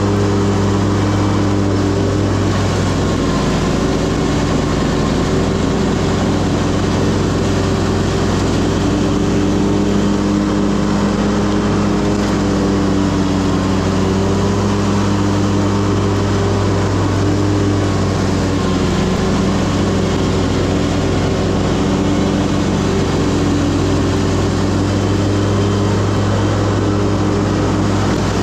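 Commercial lawn mower engine running steadily: a constant, loud low hum that holds the same pitch throughout.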